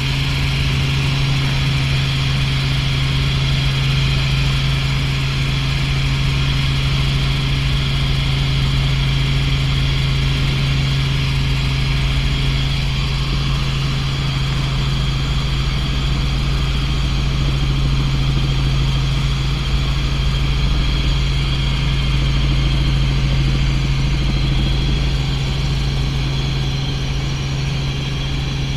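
Helicopter in cruising flight heard from inside the cabin: the loud, steady drone of its engine and rotor, with a deep constant hum over a rumble and a rushing hiss.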